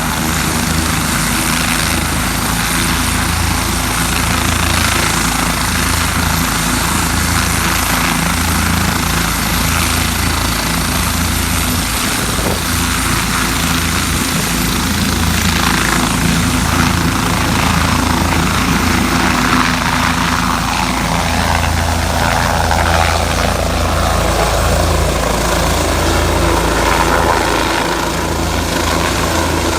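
Helicopter running close by: steady loud rotor beat with turbine noise, a higher whine sliding down in pitch in the second half.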